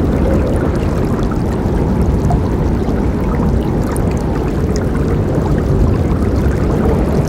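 A river flowing strongly, a steady full rush of water with small splashes.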